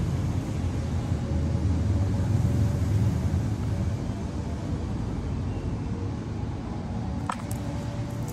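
Steady low rumble, with a short sharp click about seven seconds in.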